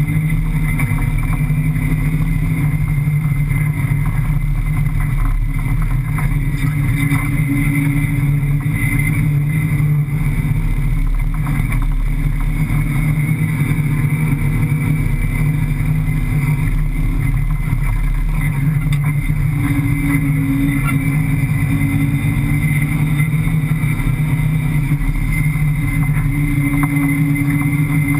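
5.7-litre Hemi V8 of a desert rally car running steadily under load while driving over sand dunes, heard from inside the cabin.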